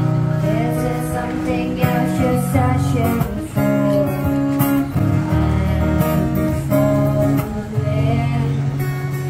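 Acoustic guitar strummed in steady chords while a girl sings a slow melody into a microphone.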